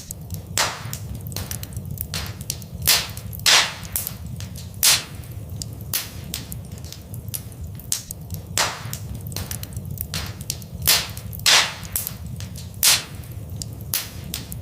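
Fireplace fire crackling: irregular sharp pops and snaps, a few much louder than the rest, over a steady low rumble of the flames.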